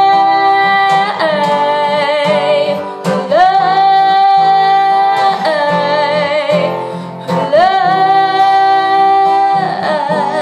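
A woman singing three long, drawn-out notes with vibrato over strummed acoustic guitar.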